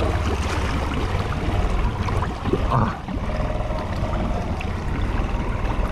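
Honda Rancher ATV engine running steadily as the quad wades through deep swamp water, its wheels churning and splashing the water.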